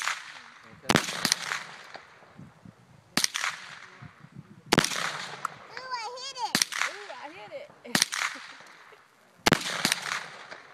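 Gunshots from an AR-15 rifle fired one shot at a time: about eight sharp cracks, spaced one to two seconds apart, each with a short echo.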